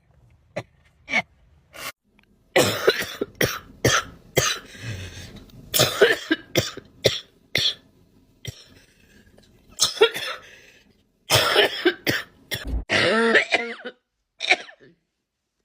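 A girl coughing over and over in short fits of two to four sharp coughs, with brief pauses between fits.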